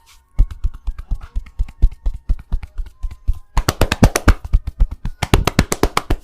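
Percussive massage strokes: a barber's hands striking the client's body in a rapid, even rhythm of about eight to ten strikes a second. They start as dull thumps and turn into sharper, brighter slaps after about three and a half seconds.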